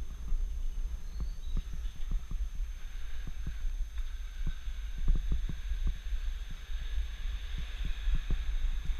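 Low rumble of wind buffeting a helmet-mounted GoPro's microphone while cycling, with irregular small knocks and rattles as the bike jolts over rough alley pavement. A faint hiss grows from about three seconds in.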